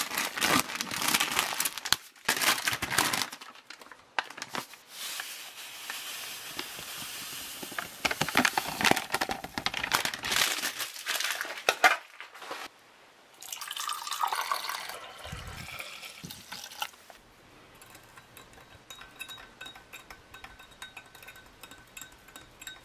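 A foil beverage-powder pouch crinkling and tearing as it is slit open, then water poured into a drinking glass for a couple of stretches. Near the end, the drink is stirred with a spoon, with light ticks and faint ringing from the glass.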